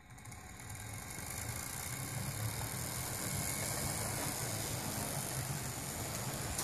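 Model Union Pacific SD45T-2 diesel locomotive pulling a string of tank cars along model track, its steady running sound building over the first couple of seconds as the train gets moving.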